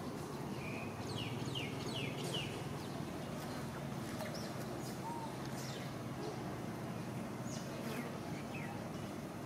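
Birds chirping: a scatter of short, high, downward chirps, thickest in the first two and a half seconds and again in the second half, over a steady low background rumble.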